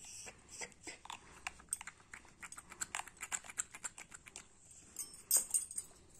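Quick, irregular soft clicks from hands rubbing the base of a dog's ear to work in ear drops for an ear infection. A brief burst of sharper clicks comes near the end.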